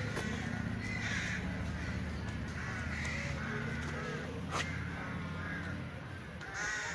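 Crows cawing: a few separate harsh calls a couple of seconds apart, the last near the end the loudest, over a steady low hum, with one sharp click about midway.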